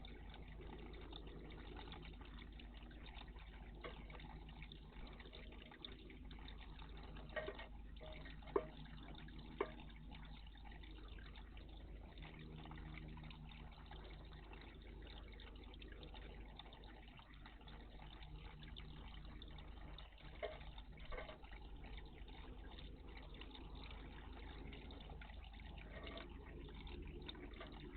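Faint, steady trickle of water in a garden bird bath. A few short, sharp sounds stand out: a cluster about a third of the way in and a couple more past two-thirds.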